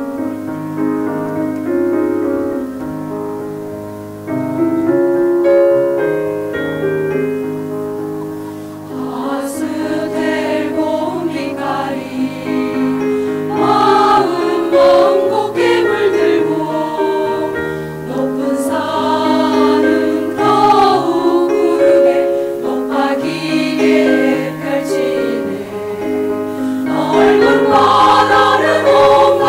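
A choir singing a song in Korean to instrumental accompaniment. The accompaniment plays alone at first, and the voices come in about nine seconds in.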